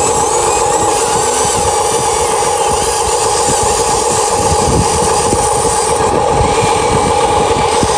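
Huina 1593 RC excavator's small electric motors and gearboxes running with a steady whine.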